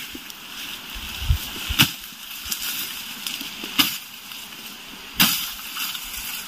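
A hand blade chopping through tall grass stalks: four sharp cuts, one every one and a half to two seconds, with rustling of grass between them.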